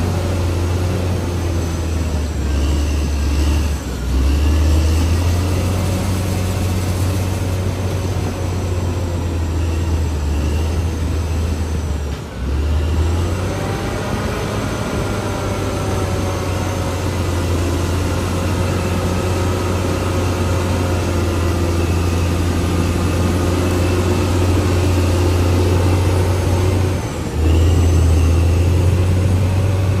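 Diesel engine of a CAT D6R XL bulldozer running steadily with a deep rumble, dipping briefly three times before picking back up.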